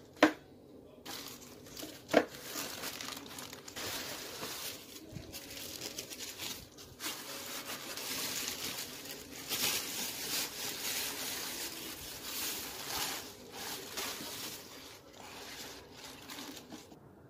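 Tissue paper and plastic wrapping rustling and crinkling as they are unwrapped by hand in a shoebox. Two sharp knocks about two seconds apart come at the start and are the loudest sounds.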